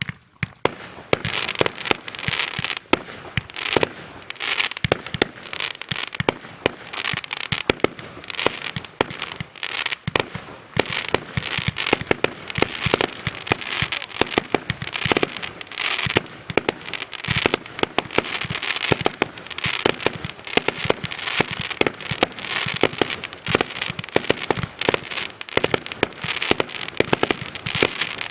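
A 100-shot consumer fireworks cake firing continuously: a rapid string of sharp launch pops and bursts over dense crackling.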